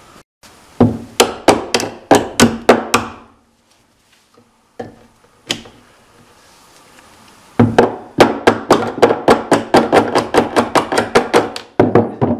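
Hammer blows knocking a tight pin out of a pin hinge at the base of a wooden cabinet: a run of about eight strikes, a pause with a couple of single taps, then a longer, faster run of about five strikes a second.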